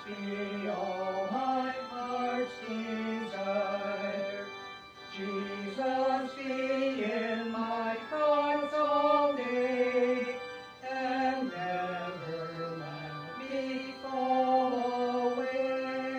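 Slow hymn-like music, a melody moving step by step in held notes.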